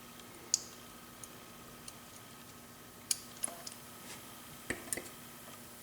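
Light, sharp metallic clicks of small pins, springs and parts from a Corbin Russwin mortise lock cylinder being taken apart and handled. Six or so irregular clicks, several close together about three seconds in and again near the five-second mark.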